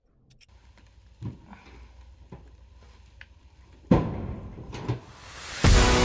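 A few faint taps and clicks from hand work on the bench, then a heavy hit about four seconds in followed by a rising swell that breaks into guitar-driven background music near the end.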